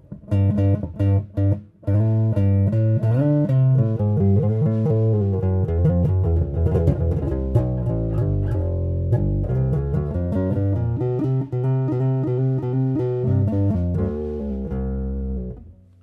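Electric bass guitar played through a Carvin BX700 bass amp head, in tube preamp mode with the contour control at half. It opens with a few short plucked notes, then runs into held notes with some slides between pitches, and stops just before the end.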